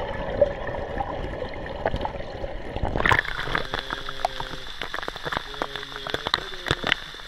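Muffled rushing and gurgling of water heard underwater. About three seconds in, the camera comes up into the air and the sound turns to a waterfall pouring into a pool, with many sharp splashes.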